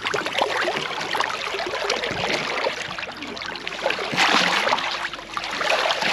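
Water sloshing and splashing against a boat's hull as a large shark moves at the surface beside it, with a louder splash about four seconds in.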